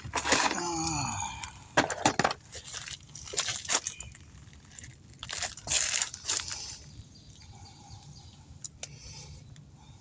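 Cutters snipping off the protruding end of a tire repair plug, with scattered sharp clicks and short crunchy scrapes as the tool and tire are handled, fading to quieter handling near the end.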